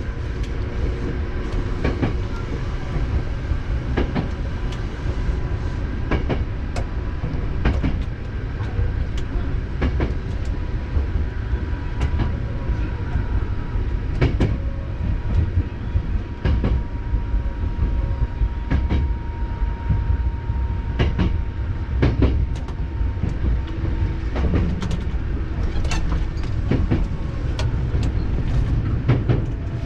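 Hankyu 7000 series electric commuter train running at speed, heard from inside the lead car: a steady low rumble with irregular sharp clicks of the wheels over rail joints, and a faint steady whine for several seconds in the middle.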